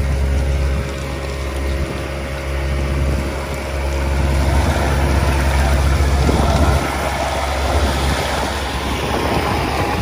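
Hydro-excavation vacuum truck running loudly: a steady low engine and blower drone with a rushing of air and water through the suction. The rush swells about four seconds in and eases back near seven seconds.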